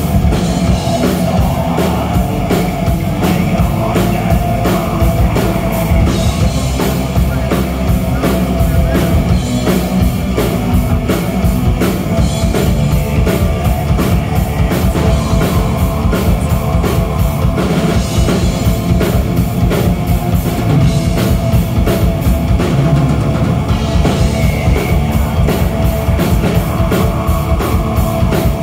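Black metal band playing live and loud: distorted electric guitars and bass over fast, steady drumming, with no breaks.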